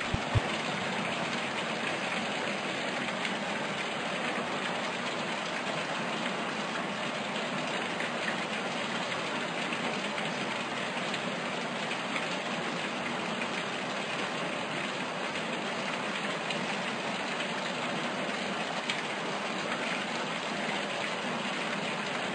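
Steady rushing noise with no pitch, unchanging throughout, with a single sharp click about half a second in.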